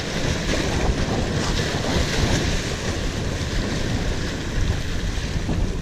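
Sea surf washing and churning over jetty rocks, with wind buffeting the microphone.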